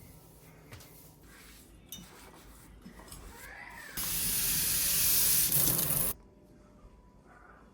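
A steady hiss of spray lasting about two seconds, starting and stopping abruptly, among faint handling sounds of kitchen cleaning.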